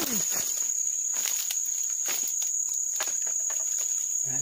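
Steady, high-pitched chirring of insects, with scattered short rustles and clicks from handling among dry reeds.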